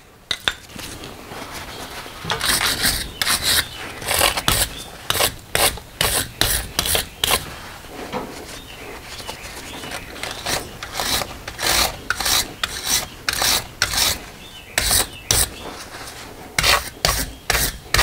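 Hand scraper with a metal blade scraping dirt off the rear differential housing around the leaking pinion seal, in quick repeated strokes of about two a second, with rag rubbing in between. A quieter stretch in the middle is mostly rubbing.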